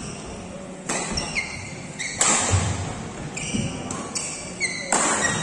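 Badminton doubles rally: several sharp racket strikes on the shuttlecock, a second or more apart and echoing in the hall, with short high shoe squeaks on the court mat between them.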